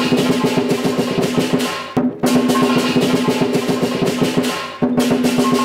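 Chinese lion-dance (barongsai) percussion: a rapid drum roll with hand cymbals clashing. It plays in phrases that break off briefly about two seconds in and again near the end.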